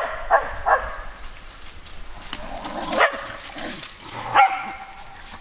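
A dog barking during play: three quick barks at the start, then single barks about three seconds and four and a half seconds in, the last one slightly longer.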